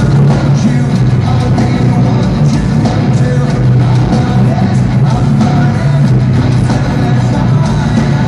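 Heavy rock band playing live at full volume, with electric guitars and a drum kit.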